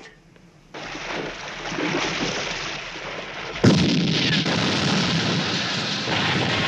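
Film sound effect of a torpedo exploding against a large structure: a rushing roar builds for a few seconds, then a sudden loud blast about halfway through, followed by a continuing rumble of fire and debris with a faint steady tone underneath.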